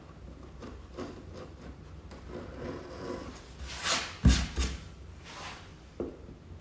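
Wood chisel scraping and paring old glue and wood at a door's glued joint: light scattered clicks, then a few louder scraping strokes with a knock about four seconds in.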